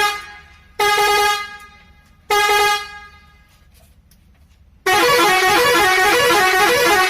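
Truck horn sounding two short blasts about a second and a half apart, then a longer blast of about two seconds whose pitch steps quickly between notes like a tune horn.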